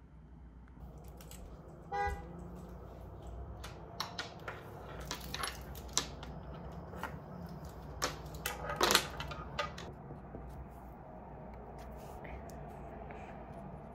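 A short, single car-horn toot about two seconds in, followed by scattered sharp clicks and knocks, the loudest a quick clatter near nine seconds.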